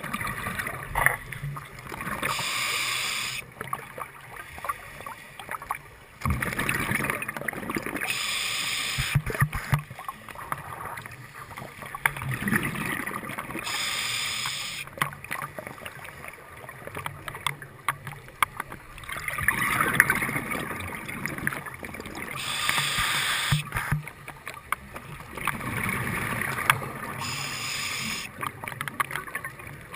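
Scuba breathing through a regulator, heard underwater through a camera housing: a loud burst of exhaled bubbles every five or six seconds, about six times, with a duller rush of noise between.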